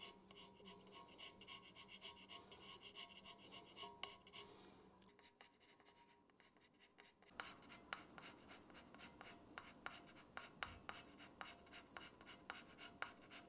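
Carbide hand scraper cutting turcite bearing strips on a milling machine saddle: a faint, rapid series of short scraping strokes, about four a second, knocking down the high points left by a bluing print. The strokes pause briefly about five seconds in, then resume.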